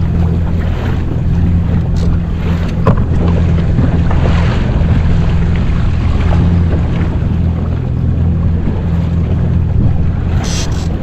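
Yamaha jet ski engine running at low speed with a steady hum, water splashing along the hull and wind buffeting the microphone.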